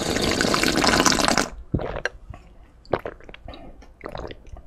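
Slurping milk from a bowl of Chex cereal in one long, loud slurp of about a second and a half, followed by soft scattered mouth clicks of chewing.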